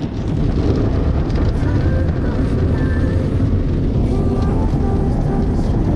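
Autec EV1 touchless automatic car wash spraying water onto the car, heard from inside the cabin: a loud, steady rush and drumming of water on the body and glass.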